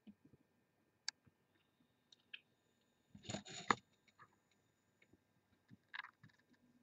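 Faint, scattered clicks of a computer mouse, with a short rustling noise about three seconds in that is the loudest sound.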